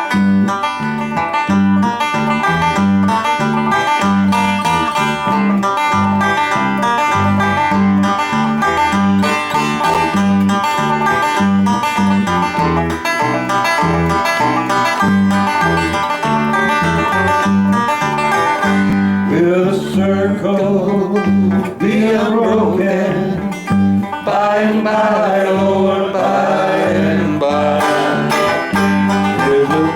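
Bluegrass song played on banjo and guitar: an instrumental opening of picked notes, with a singing voice coming in about two-thirds of the way through.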